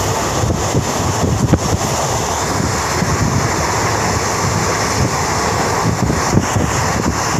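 Steady running noise of a moving train heard from a carriage window, with wind buffeting the microphone.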